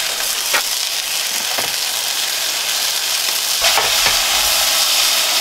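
Venison smash burger patties sizzling in a smoking-hot pan on a portable gas stove, a steady frying hiss with a few light knocks of the utensils. A low rumble comes in about two-thirds of the way through.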